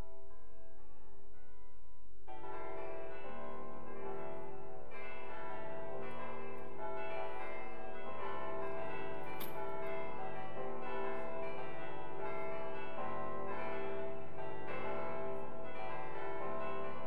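Bells ringing a continuous peal: many overlapping ringing tones struck in quick succession, with a lower set of bell tones joining about two seconds in.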